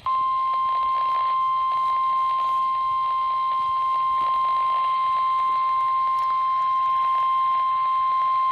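NOAA Weather Radio warning alarm tone: a single steady high-pitched 1050 Hz tone held without a break, the signal that a warning message follows.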